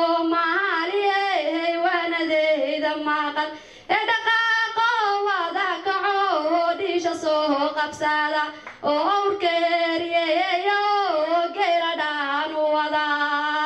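A young woman singing solo into a handheld microphone: long held phrases with ornamented pitch bends, broken by short pauses for breath.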